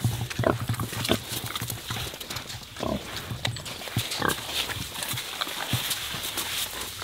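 Iberian pigs grunting as they root in soil and grass, with short grunts scattered throughout and two longer, drawn-out calls about three and four seconds in.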